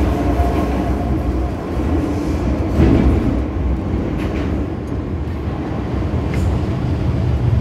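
Inside an MTR M-Train electric multiple unit, the car running on the track as it comes into a station: a steady low rumble of wheels and traction equipment, with a few faint clicks.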